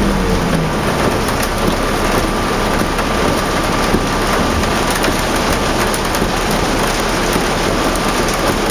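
Heavy rain beating steadily on a New Flyer D40LF transit bus, heard from inside the moving bus, with the diesel engine and road noise low underneath. A faint steady whine fades out near the end.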